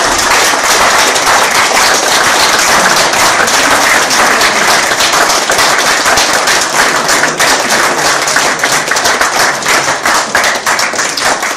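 Audience applauding loudly, a dense crackle of clapping that begins to thin out near the end.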